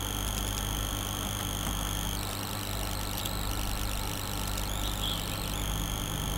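Steady electrical hum and hiss of the recording setup, with thin high-pitched whine tones that drop out about two seconds in and return near the end.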